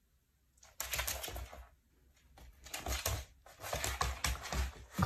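A Labrador puppy's claws clicking and paws thumping on a hardwood floor as she hops and scrambles about, in quick irregular spurts starting about a second in.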